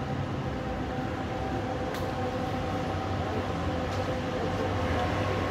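Steady hum of a standing tram: a low drone with a few higher steady tones over it, and faint clicks about two and four seconds in.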